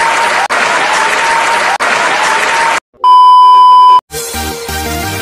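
Cheering and applause from a crowd for about three seconds, broken off twice for an instant, then a loud steady beep lasting about a second, then electronic dance music starting about four seconds in.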